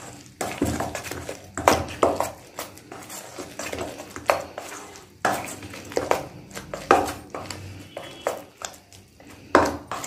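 A hand mixing a thick spice and gram-flour paste in a stainless steel bowl: irregular wet scrapes and squelches, with sharp knocks of the metal bowl every second or so.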